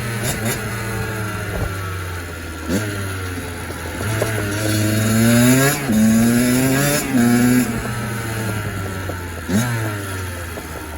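Kawasaki KX85 two-stroke dirt bike engine, freshly rebuilt, revving hard under acceleration. The pitch climbs and then drops back at each upshift, loudest about halfway through, before easing off.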